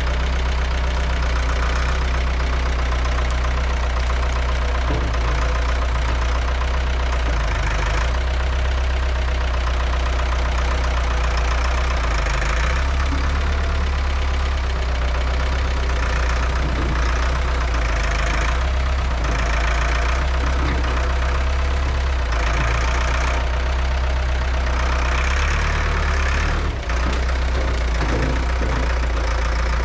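Farm tractor engine running steadily with a deep, even hum, its higher sound swelling briefly every few seconds as it works.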